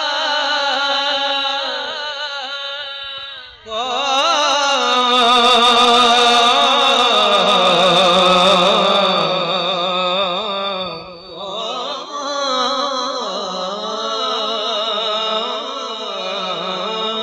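A man chanting Islamic devotional verse (naat/manqabat) through a microphone and loudspeakers, drawing out long notes with a strong vibrato. There are short breaths about three and a half seconds in and again about eleven seconds in.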